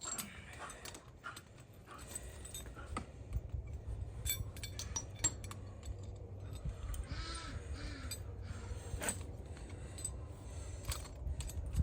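Steel chain links and rings clinking and jangling as they are handled, a string of light metallic clicks. A brief animal call sounds faintly about seven seconds in.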